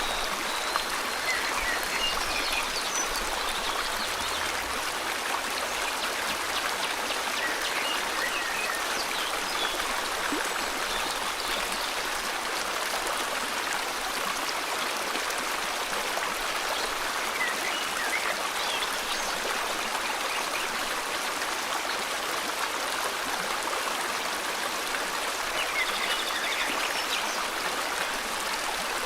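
River water flowing steadily, with a few faint bird chirps now and then.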